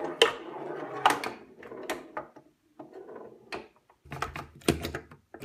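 A steel ball rolls and rattles across a homemade plywood pinball playfield, with several sharp wooden clacks as the hand-worked mechanical flippers kick it. The knocks cluster near the end.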